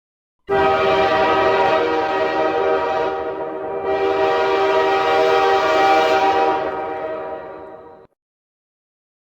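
Train horn sounding one long, steady blast of about seven seconds that starts sharply just after the beginning and fades away near the end.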